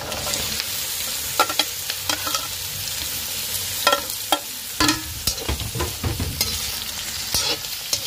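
Diced carrots, green capsicum and sliced pork hitting a hot wok of frying onion and garlic: the sizzle swells as they land, with repeated sharp scrapes and knocks of a metal spatula against the wok and wooden board as the food is pushed in and stirred.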